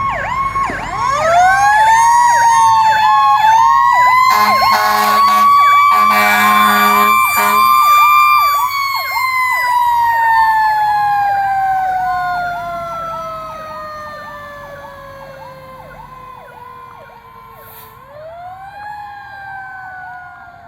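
Federal Q2B mechanical siren of a 1982 Hahn fire truck winding up over several seconds, holding its pitch, then coasting slowly down and winding up again near the end. Under it an electronic siren repeats a short sweep about twice a second, and an air horn blasts twice in the middle.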